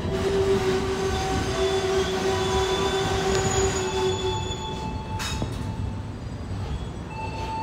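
Wheels of the Mutiara Selatan passenger train squealing as it pulls slowly out of the station, a squeal in several steady tones over a low rumble, the lowest tone dying away about four seconds in.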